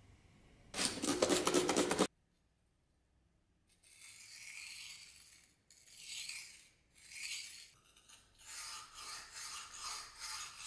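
Abrasive paper rubbed back and forth on a steel knife blade in hand-sanding strokes. A short, loud burst of fast scraping comes about a second in, then after a break a run of softer, hissing strokes, each about a second long.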